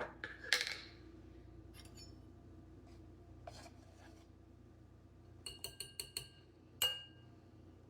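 A brief scrape, then a spoon tapping against a bowl: about five quick ringing taps, then one harder clink near the end. This is typical of knocking cornstarch off a measuring spoon into a sauce mixture.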